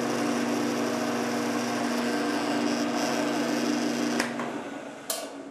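Benchtop mill-drill's spindle motor running at a steady pitch while center drilling a metal part, then switched off and winding down near the end, with a sharp click about five seconds in.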